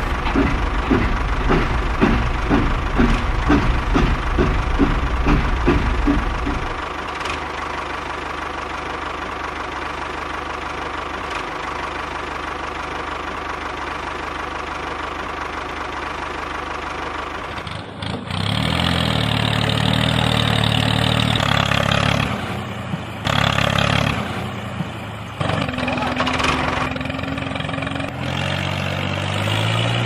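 Tractor engine running with a regular chug for the first several seconds, then a steadier hum, and louder revs that shift up and down in pitch in the last third.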